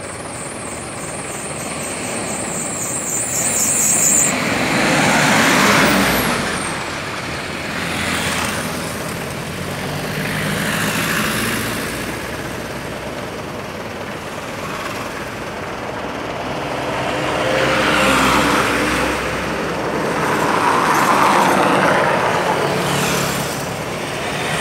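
Highway traffic: vehicles, motorcycles among them, passing close by one after another, each rising and fading, over a steady background hum.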